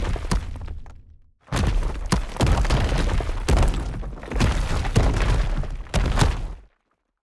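Designed debris-explosion sound effect: layered shattering and crashing with many sharp impacts over a heavy low rumble. A first burst fades out within about a second and a half, then a dense run of crashes follows and cuts off suddenly near the end.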